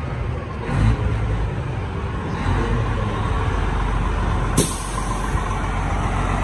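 Heavy diesel truck engine running with a steady low rumble. There is one short, sharp hiss about four and a half seconds in.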